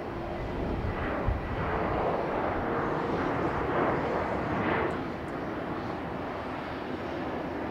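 Jet airliner engines running, swelling to a peak partway through and then easing back.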